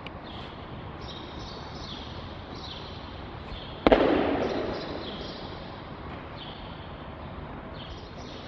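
An aikido partner thrown in shiho-nage hits the mat in a breakfall about four seconds in: one loud slap that rings on in the hall for about a second. A steady hiss runs underneath.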